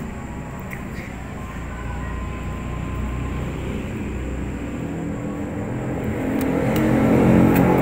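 A motor vehicle's engine running nearby, a low steady rumble that grows louder toward the end.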